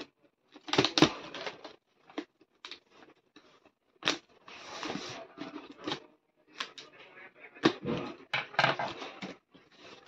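Cardboard ceiling-fan carton being opened by hand: packing tape slit and torn, flaps pulled back, cardboard scraping and crinkling in irregular bursts with short sharp snaps.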